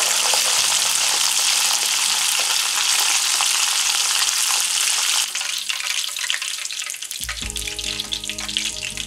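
Chicken karaage deep-frying in hot oil in a shallow pan, the pieces golden and crisp: a dense, steady sizzle that thins to scattered crackling about five seconds in. Soft music comes in near the end.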